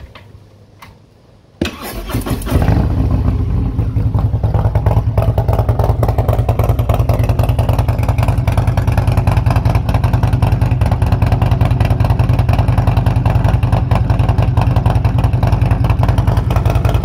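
After a couple of faint clicks, a 2019 Harley-Davidson Road King Special's Milwaukee-Eight 114 V-twin, with a Stage 2 upgrade, S&S 475 cams and Tab Performance exhaust, starts about a second and a half in. It settles straight into a loud, steady idle.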